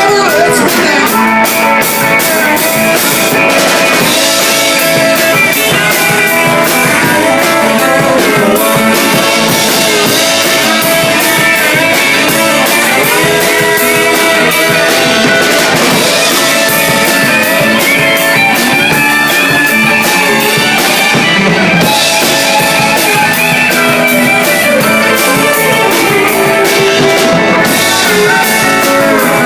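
Live country band playing an instrumental break: pedal steel guitar and electric guitar over bass guitar, with no singing.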